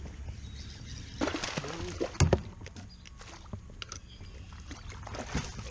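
Water splashing and sloshing beside a kayak while a hooked fish is fought close to the boat, with a few knocks, the loudest a short cluster about two seconds in.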